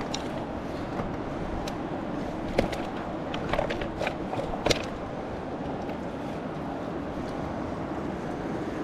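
Live tilapia and a mesh landing net being handled on river cobbles: a few sharp clicks, knocks and slaps between about two and five seconds in, over a steady rush of background noise.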